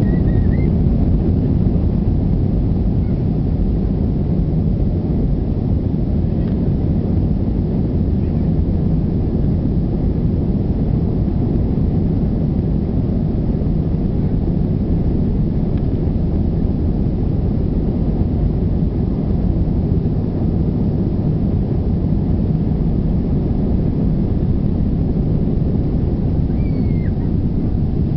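Airbus A320's jet engines at takeoff thrust and the rumble of the wheels on the runway, heard inside the passenger cabin during the takeoff roll: a loud, steady, low rumble.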